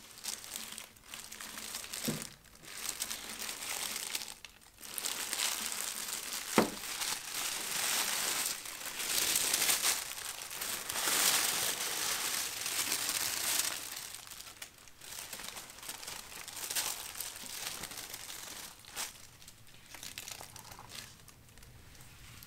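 Tissue paper crinkling and rustling as it is unwrapped from around a plastic light-up sign, in fits and starts, loudest in the middle and tailing off near the end. Two brief sharp taps stand out, about two seconds in and again a few seconds later.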